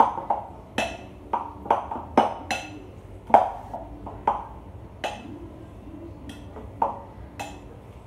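Metal potato masher striking the bottom and sides of a glass bowl while mashing boiled potatoes: irregular clinks with a short ring, about one or two a second, the loudest about three and a half seconds in.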